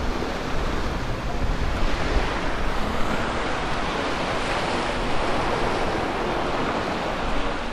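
Ocean surf breaking and washing up the beach, swelling to its loudest in the middle, with wind buffeting the microphone in a low rumble.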